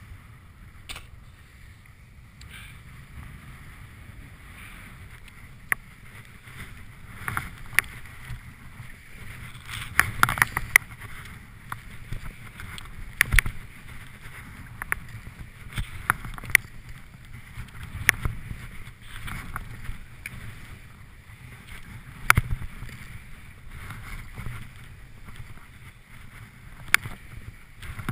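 Skis hissing and swishing through snow while skiing downhill, with sharp knocks and clacks scattered through the run, thickest about a third of the way in.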